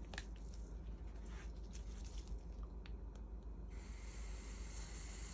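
A few faint clicks and taps of the dab tool being handled, then, nearly four seconds in, a steady faint hiss begins as a dab is drawn through the heated Simrell Warhead and its whip.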